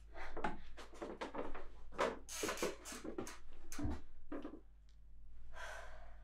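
Film sound effects: a rapid, irregular run of sharp knocks and clatters over a steady low hum, thinning out about four seconds in, then a short hiss near the end.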